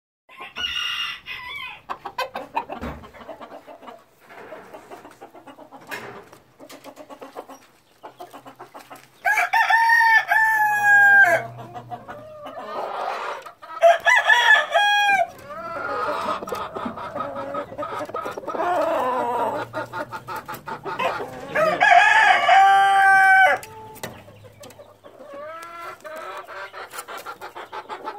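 Roosters crowing several times, with the loudest crows about nine, fourteen and twenty-two seconds in, and chickens clucking between the crows.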